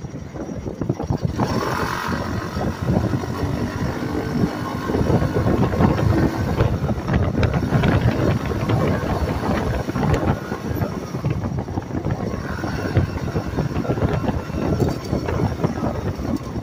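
Small gas engine of a motorized bicycle, a Honda clone, running as the bike rides along, getting louder about two seconds in. Wind buffets the microphone.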